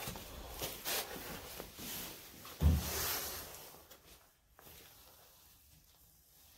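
Rustling and scraping of handling or movement close to the microphone, with one dull thump a little under three seconds in, then quieter.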